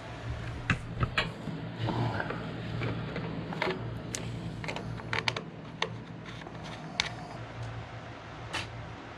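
Irregular light clicks and knocks, about a dozen spread unevenly, over a steady low hum.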